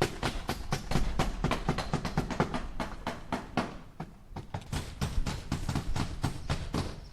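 A hammer striking nails into wood in a quick, steady run of blows, about five a second, with a brief pause about four seconds in before the hammering resumes.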